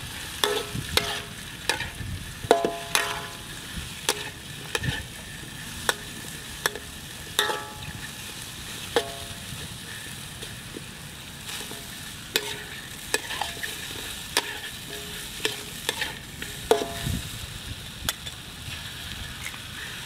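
Metal spatula scraping and clanking against a steel wok as vegetables are stir-fried, over a steady sizzle of frying. The clanks come irregularly every second or so, a few of them ringing briefly.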